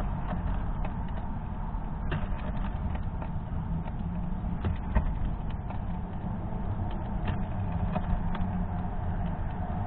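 Fox squirrel husking sunflower seeds: scattered small clicks and cracks of the shells, the sharpest about five seconds in, over a steady low rumble.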